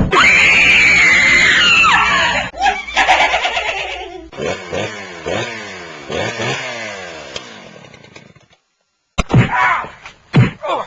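A string of sound effects. It opens with a loud, harsh noise and a falling wail. A run of repeated falling-pitch glides follows and fades away. After a short gap come a few sharp hits near the end.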